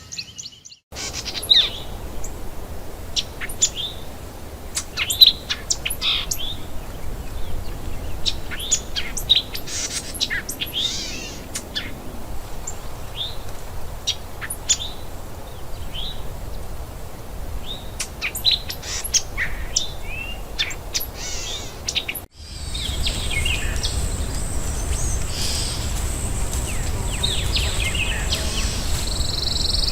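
Forest birds chirping and calling, many short, separate high chirps over a low background rumble. About 22 seconds in the sound cuts abruptly to a different forest recording with a steady high-pitched tone and denser background noise under the chirps.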